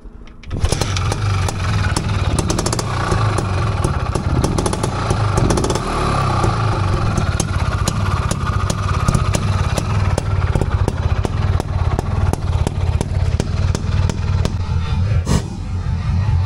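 Soviet IZh two-stroke motorcycle engine kick-started, catching suddenly about half a second in, then running loud and steady at a fast idle.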